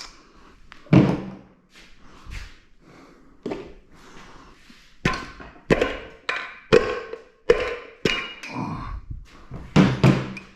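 Irregular series of about a dozen knocks and clunks, some with a short metallic ring, from metal engine parts being handled and set down while pistons are pulled from a GM 2.4 Ecotec engine. The loudest knocks come about a second in and near the end.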